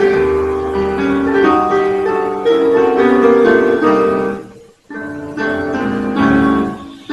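Instrumental background music led by piano, playing a melody of held notes; it fades almost to nothing about two-thirds of the way through, then picks up again.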